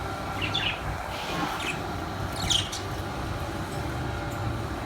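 Pet parrots in a cage giving a few short, high chirps over a steady background hum.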